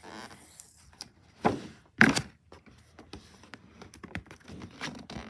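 Cardboard box being handled while its packing tape is pulled at: a short scraping hiss at the start, two sharp knocks about a second and a half and two seconds in, the second the loudest, then light scattered taps and rustles.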